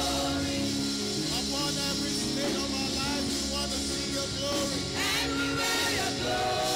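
Live church worship music: held chords from the band with voices singing over them.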